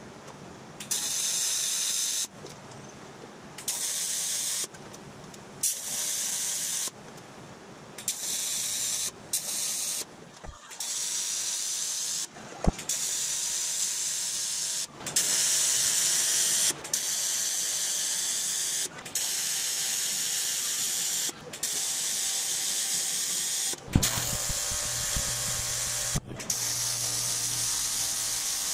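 TIG welding arc on aluminum sheet, hissing in repeated runs of a second or two as seam welds are laid. The runs are short with longer pauses at first, then follow almost back to back with only brief breaks.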